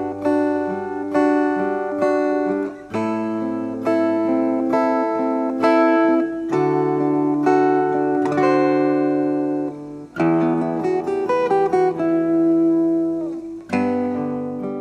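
Acoustic guitar playing an instrumental intro, with chords and picked melody notes standing in for the original keyboard and piano parts. A last chord is struck about a second before the end and rings out, fading.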